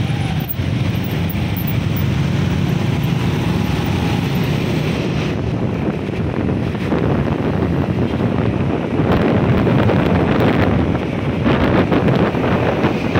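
Scooter and motorcycle engines running in dense street traffic, heard from a moving motorcycle. From about five seconds in, wind rushing over the microphone builds and grows louder as the bike picks up speed.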